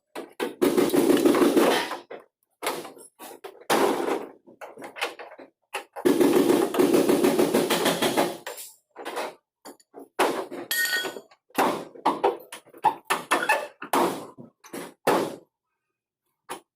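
Metal hammering and banging on vehicle body sheet metal: two long spells of rapid blows and many separate sharp knocks at irregular intervals.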